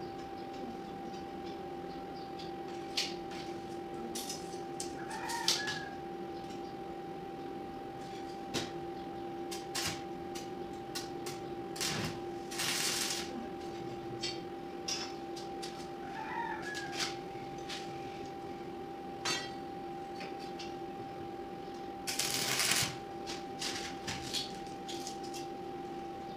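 Steel flat bars of a window grill frame being handled on a concrete floor: scattered light metal clicks and knocks over a steady hum, with two louder scraping noises of about a second each, the second near the end. A chicken calls briefly twice.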